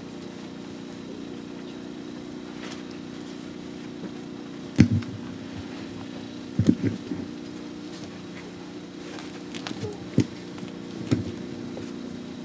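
Microphone being handled and passed between speakers: a handful of sharp bumps and knocks, the loudest about five seconds in, others around seven, ten and eleven seconds, over a steady low hum.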